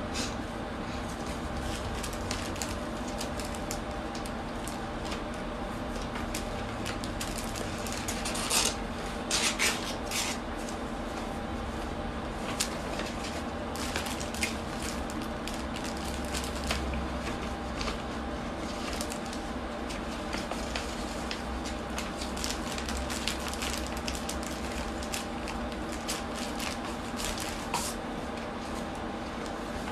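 Paper and a plastic mailer bag being handled while a gift is unpacked: scattered rustling and crinkling, with a few louder rustles about eight to ten seconds in, over a steady low hum.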